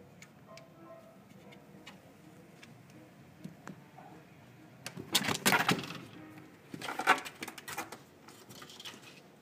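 Quiet room tone, then two bursts of rattling and scraping, about five and seven seconds in, as a kitten scrambles out of a narrow gap and onto a wooden lattice rack.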